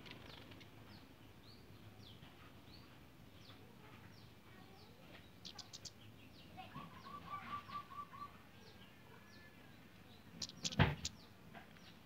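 Flowerpeckers in an aviary give thin, high, short falling chirps every fraction of a second, with a quick run of about seven lower repeated notes in the middle: the male is courting the female. A single sharp knock sounds near the end.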